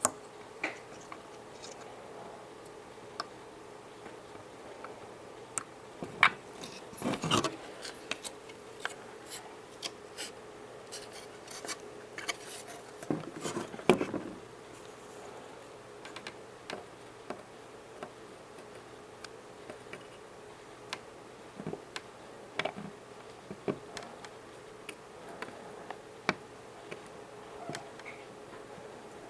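Scattered clicks, taps, scrapes and rubs of hands handling parts and tools, busiest between about 6 and 15 seconds in, over a faint steady hum.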